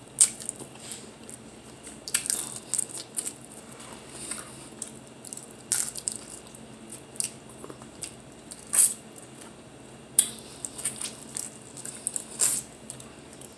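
Snow crab legs being cracked and eaten close to the microphone: irregular sharp cracks and clicks of shell, with chewing and mouth noises between them.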